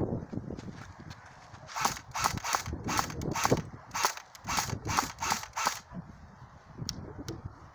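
Airsoft gun firing about a dozen single shots in quick succession, roughly three a second, each a sharp crack, with a short pause midway and two faint ticks near the end.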